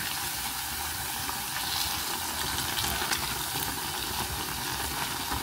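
Hot oil sizzling steadily with faint crackles around vegetable fritters (bakwan) deep-frying in a small pot.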